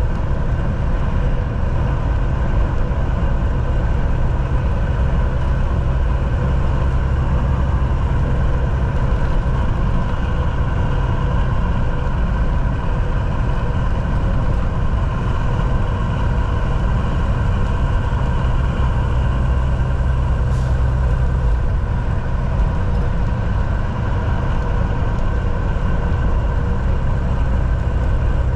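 Semi-truck's diesel engine running steadily with road noise while driving, heard from inside the cab. A single faint click about two-thirds of the way through.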